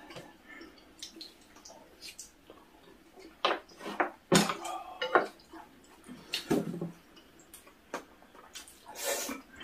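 Eating at the table: wet slurping and chewing, with spoons or chopsticks clicking against dishes in irregular short bursts.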